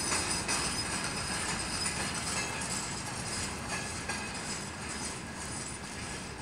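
Freight train wagons rolling past on the rails and moving away, the wheel and rail noise slowly fading, with a few sharp clanks.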